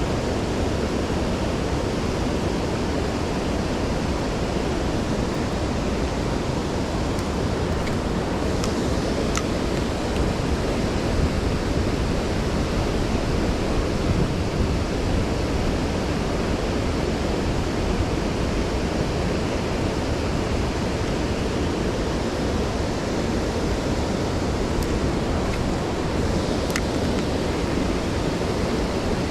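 Steady rushing of creek water, an even hiss without change, with a few faint ticks.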